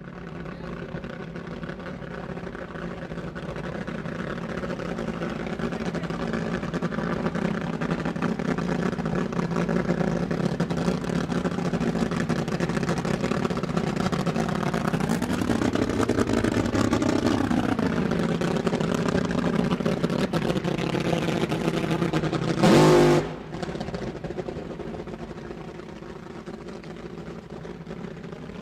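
Sports car engine running, growing gradually louder, its pitch swaying up and down in the middle as it is revved. A single loud half-second blast comes about two-thirds of the way through, after which the engine drops back to a quieter, steadier run.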